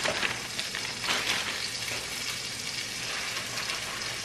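Crinkling plastic bag and rustling spinach leaves as spinach is pulled out of the bag and tossed in a bowl, a steady crackly rustle with small scattered clicks.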